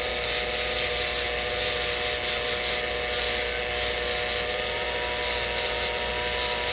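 Rotary dental handpiece running at high speed, spinning a metal wire brush wheel against the occlusal surface of a gold bridge to give it a preliminary finish. A steady motor whine with an even brushing hiss.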